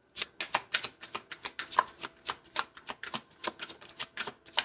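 Deck of oracle cards being shuffled by hand: a quick, uneven run of short crisp card clicks and snaps, about five or six a second.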